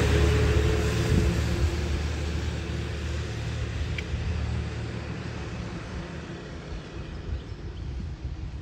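Freightliner M2 tank truck's engine running as the truck drives away, its low rumble fading steadily into the distance.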